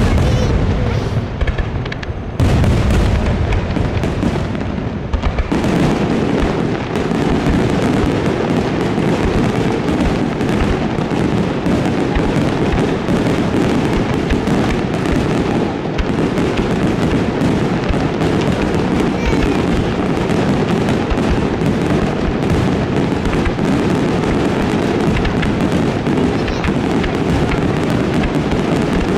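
Aerial fireworks display: a dense, unbroken barrage of shell bursts and crackle. It grows suddenly louder about two seconds in and stays at full intensity.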